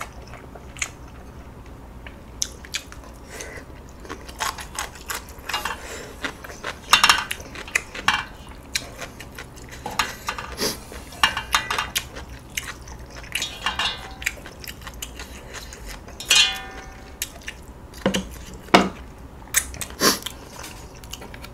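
Chopsticks clinking and scraping against a stainless steel pot of ramen in scattered irregular taps, with noodle slurps and chewing in between.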